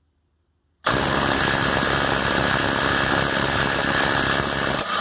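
Bosch Freak 2.0 18-volt cordless impact wrench hammering for about four seconds, starting about a second in, then stopping: it breaks loose and runs off a nut torqued to 240 foot-pounds.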